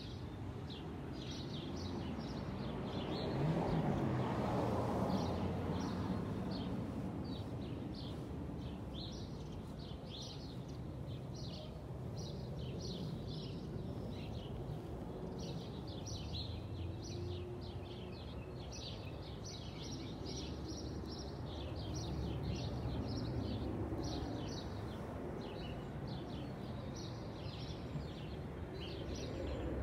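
Small birds chirping in quick repeated notes over a steady low rumble of distant traffic. The rumble swells and fades about four seconds in, and again more gently near the twenty-second mark.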